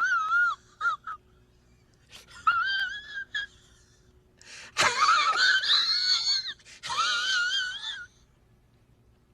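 A high-pitched, wavering wail in several cries with short gaps between them, the longest near the middle; it falls silent shortly before the end.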